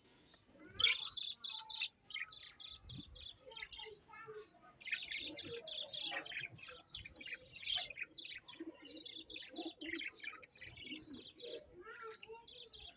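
Parrots chirping: quick runs of short high chirps, several notes at a time, one run after another with brief pauses.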